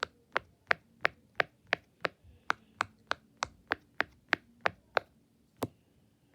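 Silicone bubbles of a rainbow snail-shaped pop-it fidget toy being pressed through one after another, each giving a sharp pop, about three a second. The pops space out and stop near the end.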